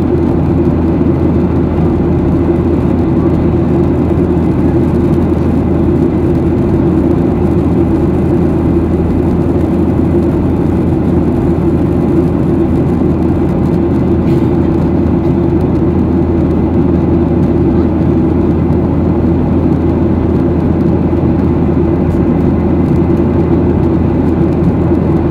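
Steady, low cabin drone of a Boeing 737-800 climbing, heard inside the cabin from a window seat beside the wing: its CFM56-7B jet engines at climb power and the rushing airflow outside the fuselage.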